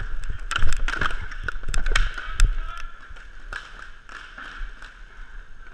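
Inline hockey play: quick clacks and knocks of sticks and puck on the rink's plastic tile floor over the steady rolling hiss of inline skate wheels. The clatter thins out after about three seconds.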